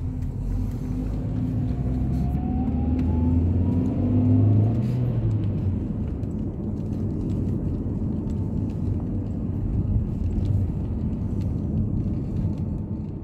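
Car engine and road rumble inside the cabin while driving. The engine's pitch rises over the first four seconds as it speeds up, then it runs steadily.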